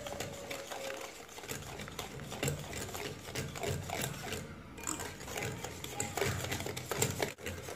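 Metal wire whisk beating a thin egg, sugar and butter mixture in a glass bowl, its wires ticking rapidly against the glass with a wet sloshing.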